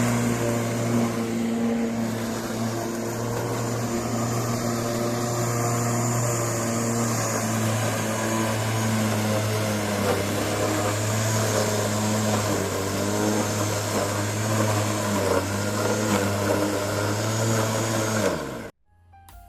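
Electric motor of a corded Bosch garden cutting tool running steadily at full speed. Near the end its pitch starts to fall as it begins to wind down, then the sound cuts off abruptly.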